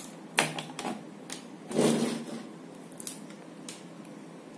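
A handheld digital multimeter being handled and set down on a circuit board: a few light knocks and clicks, with a louder rustle of handling about two seconds in.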